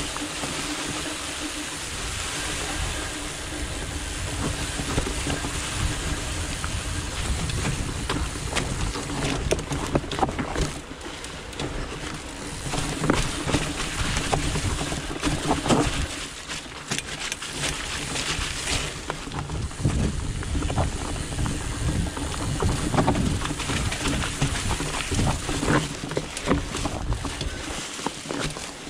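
Trek Farley fat bike ridden along a trail: steady wind rumble on the action-camera microphone, with tyre noise and frequent knocks and rattles as the bike goes over bumps.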